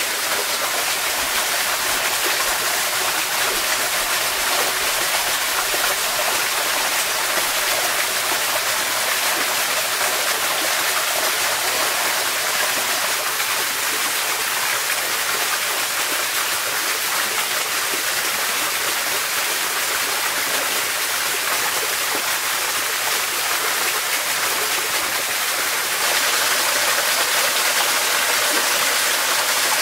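Steady rushing of a flowing stream or small waterfall, an even wash of water noise that gets a little louder near the end.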